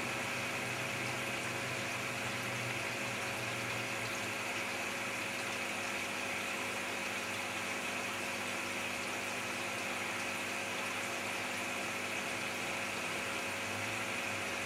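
Steady hum and water bubbling of aquarium equipment: sponge filters running in the tank.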